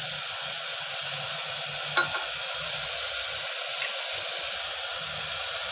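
Vegetables sizzling as they fry in oil in an open pressure cooker, a steady hiss, with one sharp tap about two seconds in.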